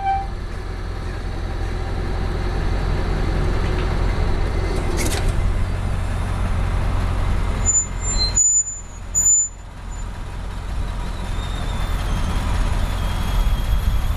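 Ford F550's 7.3-litre Powerstroke V8 turbo-diesel idling steadily, a low, even rumble. The sound drops away briefly twice about eight and nine seconds in.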